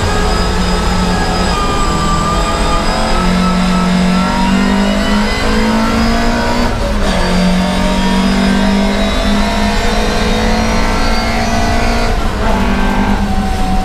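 Volvo 544 Sport's four-cylinder racing engine heard from inside the cockpit, pulling hard with its pitch climbing. About seven seconds in it breaks off briefly and comes back lower, as at a gear change, then climbs again, shifting once more near the end.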